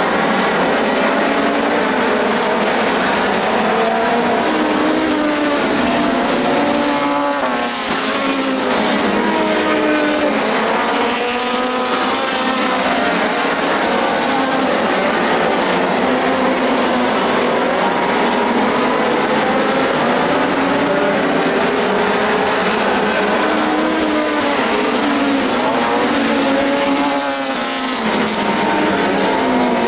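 A field of dirt-track race cars' engines running around the oval, several engine notes overlapping and rising and falling as the cars go through the straights and turns. Cars pass close a few times, about 8, 12 and 27 seconds in.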